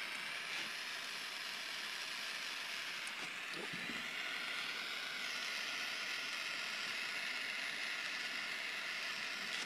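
Small handheld propane torch burning with a steady hiss as its flame heats heat-shrink tubing over a soldered wire splice.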